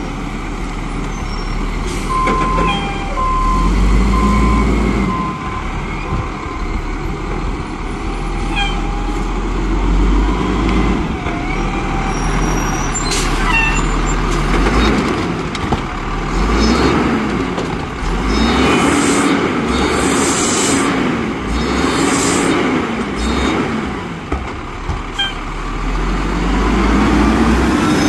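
Volvo garbage truck with a Rapid Rail automated side-loader at work: the diesel engine revs up and down several times while the arm's hydraulics run. There is also a run of about four beeps a few seconds in, a few sharp clanks, and air brakes hissing.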